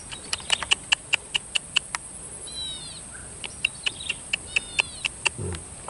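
A bird calling: two quick runs of sharp, high notes at about five a second, with short downward-sliding chirps in between.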